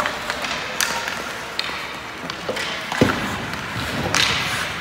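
Ice hockey play on a rink: sharp clacks of sticks and puck a few times, a heavier thud about three seconds in, and a brief hissing scrape of skate blades on the ice near the end.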